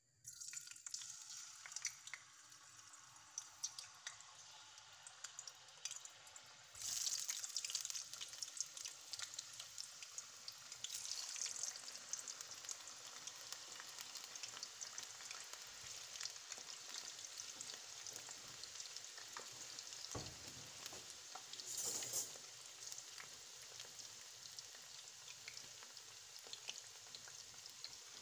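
Sliced potatoes deep-frying in hot oil in a steel pan: a crackling sizzle that starts suddenly as the first slice goes in and grows louder about seven seconds in.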